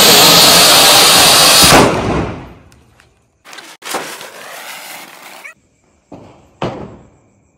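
A fountain firecracker (anar) hissing loudly as it sprays sparks, dying away about two seconds in. Then a ground spinner (chakri) hissing more quietly for about two seconds, and a brief sharp hiss near the end.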